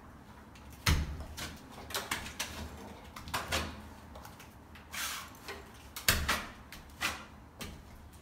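Steel plastering knife scraping in a string of short strokes, about eight, cutting back a nearly set plaster patch on a ceiling and being scraped clean on a plasterer's hawk. The first stroke, about a second in, is the loudest, with a knock.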